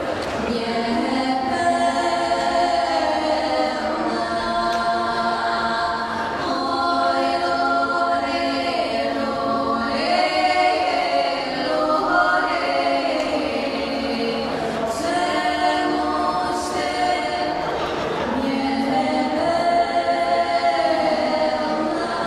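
Choir singing without accompaniment: several voices holding long chords that shift every second or two, in a solemn, church-like style.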